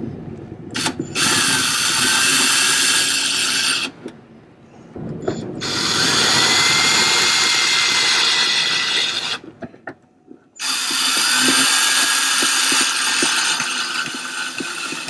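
Cordless drill running in three long runs of a few seconds each, with short pauses between them, as it drives screws to fasten a fish-finder mount to a plastic box. Its motor whine rises as it spins up at the start of each run.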